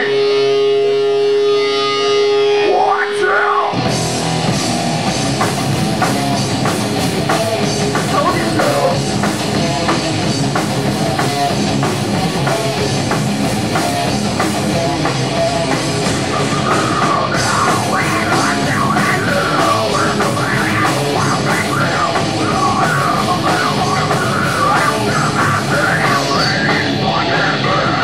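Live heavy rock band: a held, distorted electric guitar note rings for about three seconds, then drums, bass and electric guitars come in together and play on at full volume.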